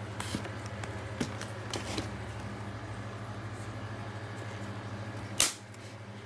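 A parcel box being handled and opened: scattered short rustles and clicks, then one loud sharp snap about five seconds in, over a steady low hum.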